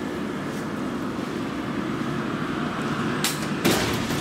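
A steady outdoor rumble of background noise with a faint whine rising slightly in pitch. Then two sharp knocks a little over three seconds in, the second one louder.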